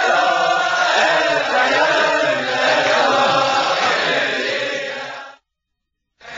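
A crowd of Chasidic men singing a niggun together. The singing cuts off abruptly about five seconds in, and after nearly a second of silence it starts again.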